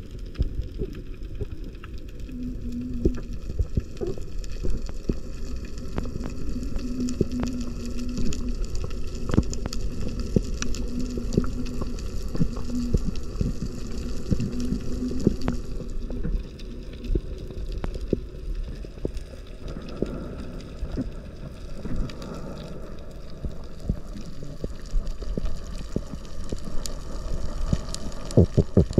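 Underwater ambience over a coral reef: a steady low rumble of water noise, scattered with many sharp clicks and crackles. A faint low hum comes and goes in the first half.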